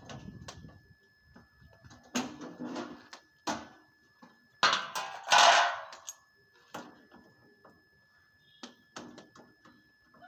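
Irregular clicks, knocks and clanks of hand work on an air-conditioner unit being opened up, with a louder noisy rush lasting a little over a second about halfway through.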